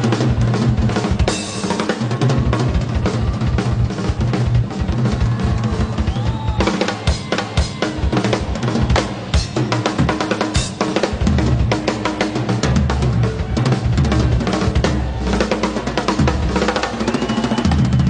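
Live rock band music led by a drum kit played in fast, busy patterns of bass drum, snare and rimshot hits, with an electric bass guitar holding deep notes that come up stronger about halfway through.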